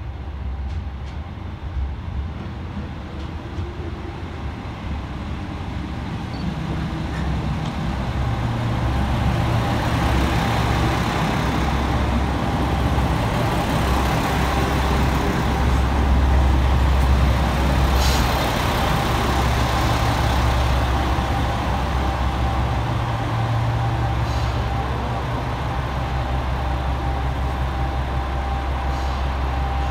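JR Shikoku 2000-series diesel multiple unit running into the platform. Its diesel engines make a steady low drone that grows louder over the first ten seconds and then holds as the train draws up and stands. There is a brief sharp hiss about eighteen seconds in.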